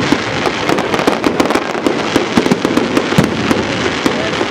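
Aerial fireworks display: several shells bursting overhead in quick succession, with a dense, continuous crackling and popping.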